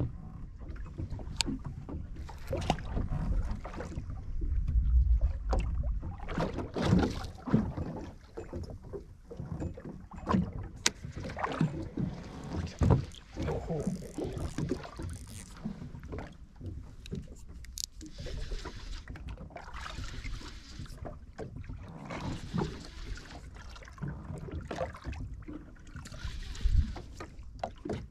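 Water lapping and slapping against the hull of a small drifting boat, with irregular knocks and clicks and wind rumble on the microphone.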